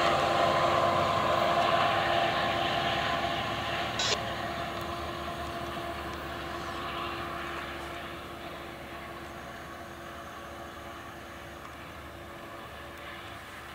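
Amtrak double-deck passenger train pulling away, its diesel locomotive at the far end running under power, with thick exhaust and a steady engine tone over wheel and rail noise. The sound fades steadily as the train recedes. A single sharp click comes about four seconds in.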